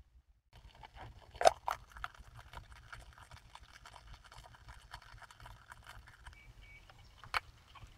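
Water in a 12-volt stainless electric cup crackling and ticking with many small bubble pops as it heats toward the boil, with a few louder clicks about a second and a half in and near the end.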